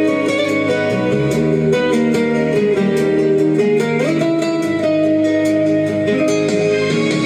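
Instrumental music with guitar over held chords and a steady beat, no singing.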